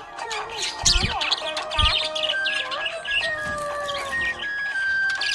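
Budgerigar chirping in rapid, busy bursts of high notes, over background music with long held notes.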